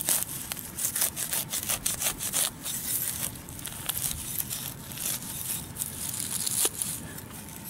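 Serrated digging knife cutting and sawing through grass turf, roots and soil to dig a plug: a quick run of short scraping cuts, thickest in the first couple of seconds and thinning out later.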